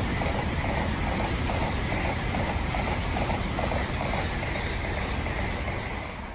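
Tokaido Shinkansen bullet train passing at speed close by: a loud, steady rushing roar with deep rumble and a rhythmic beat of wheels and cars going by, about three a second, dying away near the end as the train clears.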